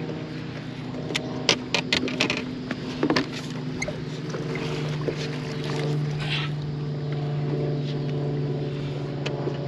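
A boat's bow-mounted electric trolling motor humming steadily. A cluster of sharp clicks and knocks comes in the first three seconds as the landing net and rod are handled on the deck.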